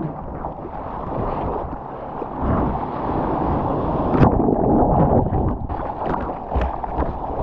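Seawater sloshing and splashing around a camera at the water's surface, with a wave breaking and sharp splashes of spray about four seconds in and again near the end.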